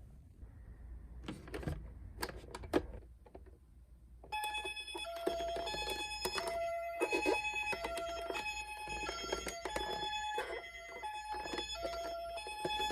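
A few light clicks from a toy being handled, then from about four seconds in a battery-powered toy emergency vehicle's electronic siren sounds: beeping tones stepping quickly between several pitches.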